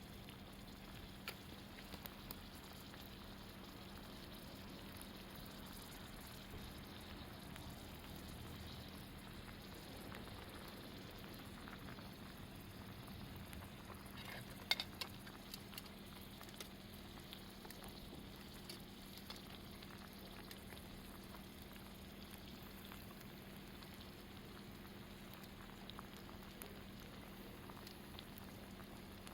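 Food bubbling and sizzling in a pot or pan over a campfire: a soft, steady hiss with scattered small pops, and one sharper crack about fifteen seconds in.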